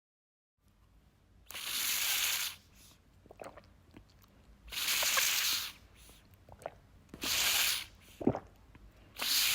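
Someone drinking water from a sport bottle: four sips through the spout, each a hissing rush about a second long, with short gulping swallows in between.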